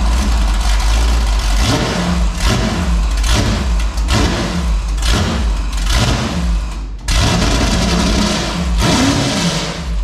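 Junkyard 5.3-litre LS V8 running very loud through open 8-into-1 headers, its revs rising and falling unevenly. Its first runs after the swap, which the owners think is getting way too much fuel.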